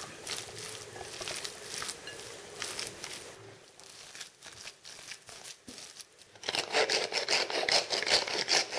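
A spoon mixing a thick stuffing of mashed potato, cream and grated cheese in a bowl, in uneven scraping strokes. After a quieter stretch, the strokes turn faster and louder, about five a second, near the end.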